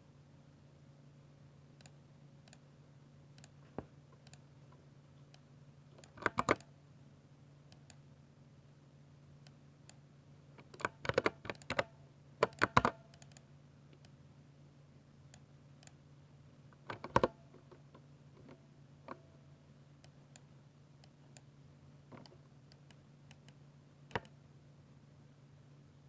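Keys being pressed on a 60% mechanical keyboard with silver switches: scattered single keystrokes and a few short quick bursts of typing, over a steady low hum.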